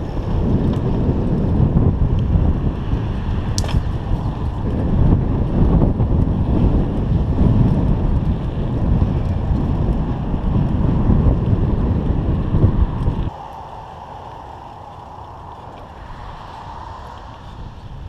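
Wind buffeting a GoPro Hero 3's microphone while riding a bicycle, a loud, even rumble with a single click a few seconds in. About 13 seconds in it cuts off suddenly to a much quieter, steady rush.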